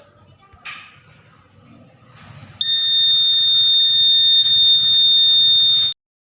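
Door alarm sounding one steady, shrill, high-pitched tone for about three seconds, starting a couple of seconds in and cutting off suddenly.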